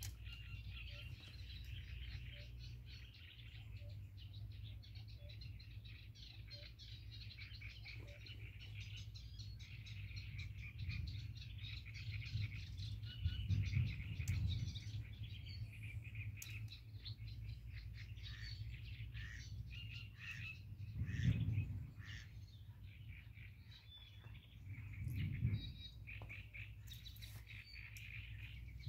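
Small birds chirping and singing without pause, many quick notes overlapping. Under them runs a steady low rumble that swells briefly three times in the second half.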